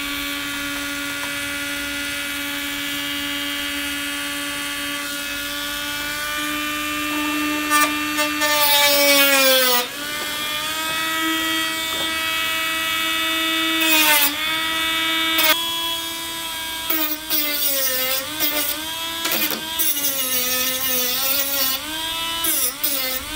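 Small Dremel-type rotary tool running with a steady high whine, its pitch dipping each time the cutting disc bites into a model railway flex-track rail. A harsh grinding hiss comes with the cuts, about eight seconds in and again near the middle, and the whine wavers up and down through the last third as the trimming goes on.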